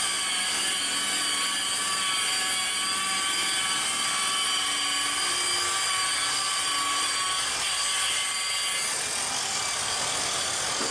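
A machine running steadily: an even mechanical whine made of several high tones held at once, easing a little near the end.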